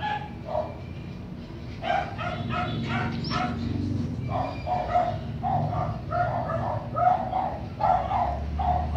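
Husky puppy barking and yelping in a string of short calls, a few at first and then many in quick succession from about two seconds in.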